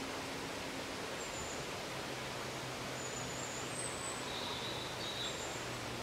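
Water rushing over a rocky waterfall cascade: a steady, even white-water noise. A few faint, short high bird chirps come over it, about a second in and again through the middle.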